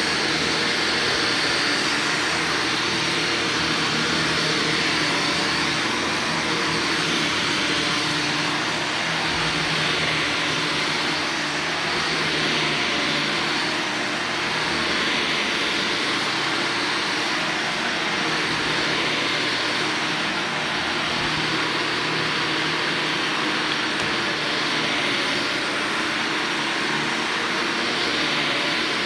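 Upright vacuum cleaner running steadily as it is pushed back and forth over carpet, with slight rises and falls in the motor's airflow noise.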